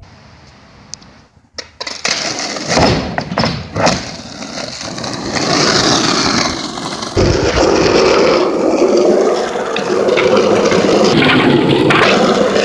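Skateboard wheels rolling on street asphalt, starting about two seconds in. Sharp clacks of the board popping and landing come around three to four seconds in and again at about seven seconds.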